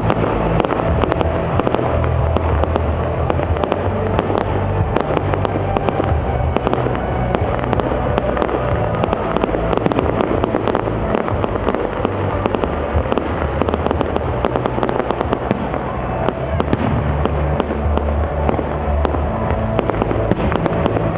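Fireworks display in full swing: a dense, unbroken run of bangs and crackling over deep booms.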